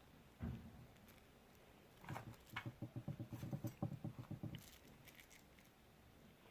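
Small watch repair tools being handled: one knock, then a quick rattling run of clicks, about seven a second, lasting two to three seconds.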